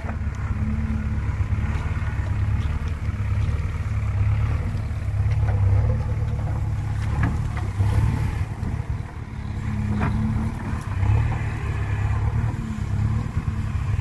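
JCB 3DX backhoe loader's diesel engine running under load while the backhoe digs soil, its note swelling and easing as the hydraulics work. A few short clanks from the bucket and arm.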